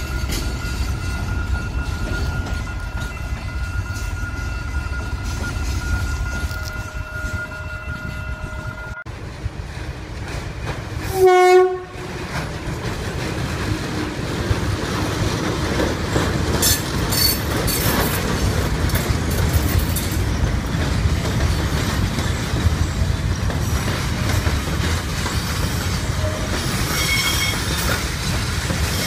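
A train passing: a steady rumble of wheels on track, with one horn blast about a second long near the middle, and high wheel squeals in the second half.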